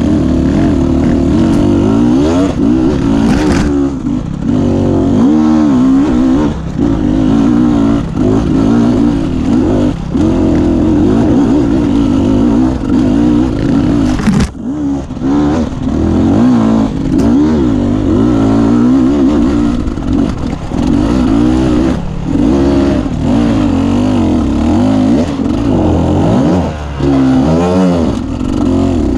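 Beta 250 RR enduro motorcycle engine, heard from on the bike, revving up and down over and over with short drops as the throttle is rolled off and on. A sharp knock cuts through about halfway.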